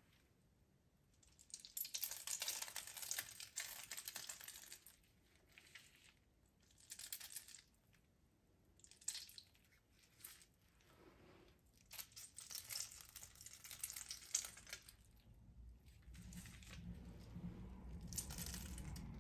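Faint, intermittent crinkling and rustling of a plastic piping bag being squeezed and moved by hand as filling is piped, with a few light clicks. A low hum comes in near the end.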